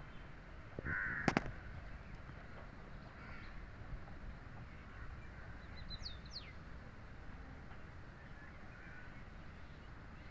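A crow caws once, harshly, about a second in, with a sharp click at the same moment, and a small bird gives a few quick high chirps around six seconds in. Under it runs a steady low outdoor rumble.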